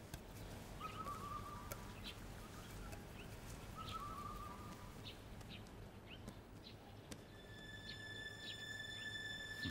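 Faint birdsong: two short trills and scattered high chirps. About seven seconds in, a steady high held tone comes in.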